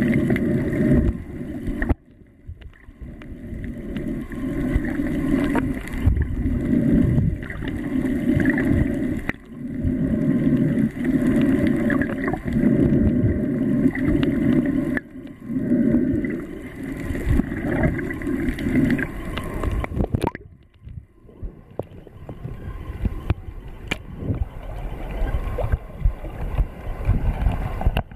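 Muffled water sound recorded by a camera held underwater, swelling and fading every second or two. It breaks off abruptly several times, and after about twenty seconds it turns thinner and choppier.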